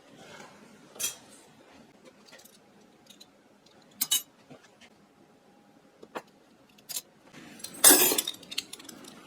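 Metal flatware clinking as pieces are picked up and set down, with single clinks spread through and a loud clatter of several pieces knocking together about eight seconds in.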